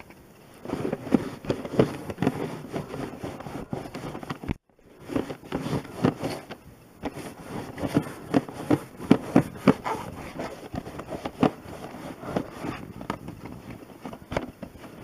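Old hand-held pet hair cleaner being rubbed back and forth over fabric, making repeated short scraping strokes as it picks up dog hair.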